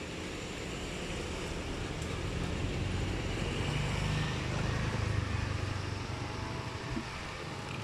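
A motor vehicle passing, its low engine rumble swelling through the middle and easing off toward the end, over steady outdoor background noise.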